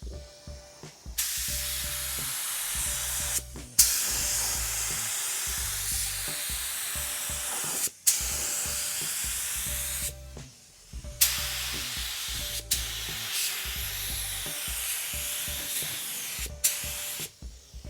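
Gravity-feed spray gun at about 25 PSI with a 1.7 mm tip, spraying high-build primer: a loud steady hiss of compressed air and atomised paint in about five long passes, each starting sharply as the trigger is pulled and stopping in a brief gap between passes.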